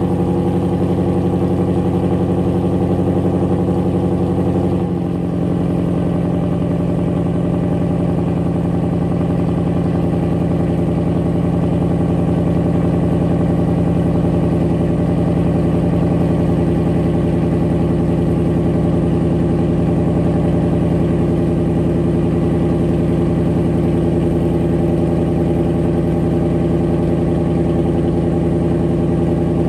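2021 Ford Mustang V8 on E85 fuel idling steadily just after a cold start. Its tone shifts slightly and the idle settles a little lower about five seconds in.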